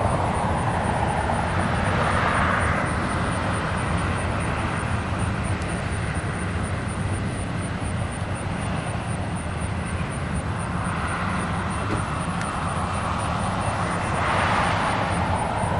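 Steady low rumble of outdoor traffic, with vehicles swishing past on the highway, swelling twice: about two seconds in and near the end.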